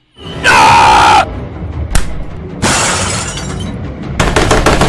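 Loud cartoon crash and smash sound effects: a shattering crash about half a second in, a sharp crack, a second crash, then a rapid clatter near the end.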